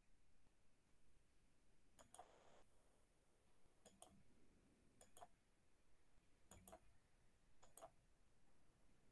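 Faint computer mouse clicks, five pairs of short sharp clicks spread over several seconds, over near silence.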